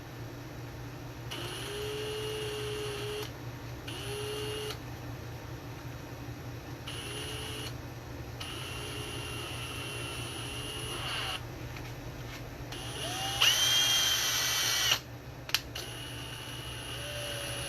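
Electric drill spinning in several short runs, twisting a pair of pickup lead wires together. About three quarters of the way through comes a louder run whose whine rises in pitch.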